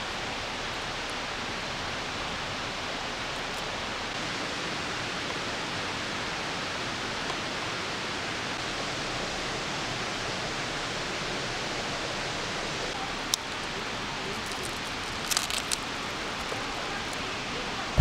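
Steady, even rushing outdoor background noise, with one sharp click about thirteen seconds in and a short cluster of clicks a couple of seconds later.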